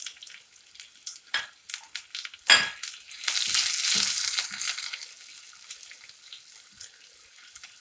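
Sliced shallots going into hot coconut oil with popped mustard seeds in a small pan: scattered crackles, a sharp metallic clink about two and a half seconds in, then a loud sizzle that fades over the next couple of seconds.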